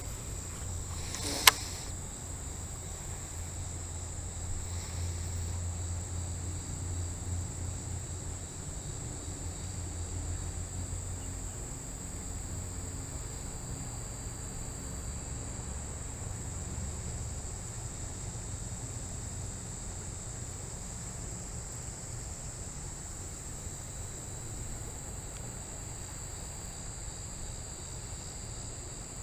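Steady high-pitched chorus of insects, typical of crickets, over a low fluctuating rumble of wind on the microphone. One sharp click about a second and a half in.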